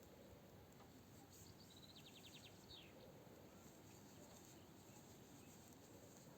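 Near silence with a faint bird song: a short high trill of quick repeated notes about two seconds in, ending in a falling note.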